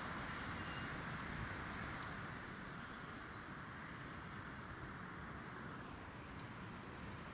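Faint outdoor street ambience: a steady hum of distant road traffic, easing slightly after the first few seconds, with a few faint high squeaks in the first half.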